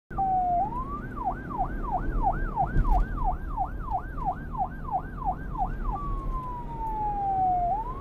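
Electronic 'telolet' bus horn of the Basuri kind sounding a siren-like yelp: quick falling sweeps about three a second, then one long slow falling glide near the end, over a steady low hum.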